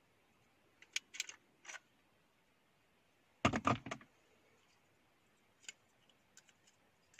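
Hard plastic clicking and rattling as a cup-shaped USB car air purifier and its plug adapter are handled. There are a few light clicks, then a louder cluster of knocks and rattles about three and a half seconds in, then a few faint ticks.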